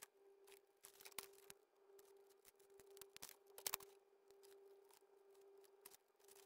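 Scissors snipping through a thin clear vacuum-formed plastic slot car body shell: a string of quiet, crisp cuts, the loudest pair about three and a half seconds in, over a faint steady hum.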